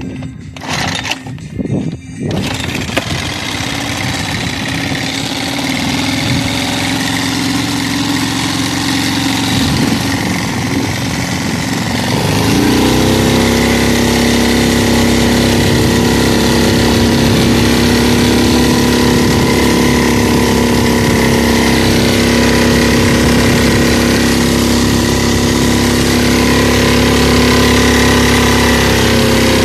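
Parsun 2.5 hp four-stroke single-cylinder outboard motor running at low speed, then throttled up about twelve seconds in to a steady, higher-pitched drone as the boat gets under way, with water rushing behind it.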